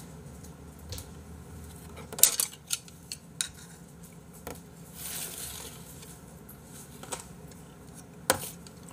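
Tableware clinking and knocking as dishes and a rice bowl are handled and set down on a serving tray: a cluster of sharp clinks about two to three and a half seconds in, a few scattered ones after, and one more near the end.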